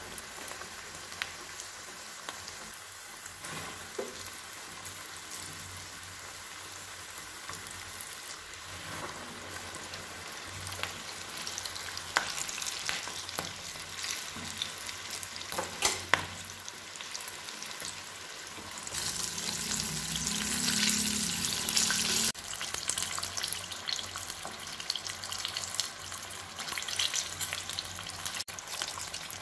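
Flour-battered chicken pieces deep-frying in a pot of hot oil: a steady sizzle with occasional sharp pops, louder for a few seconds past the middle with a low hum under it.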